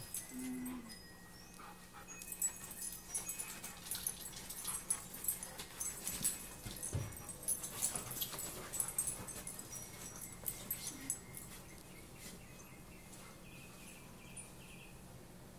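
Dogs play-wrestling on a nylon sleeping bag: quick irregular scuffling and rustling of the fabric that eases off after about ten seconds, with a few faint whimpers.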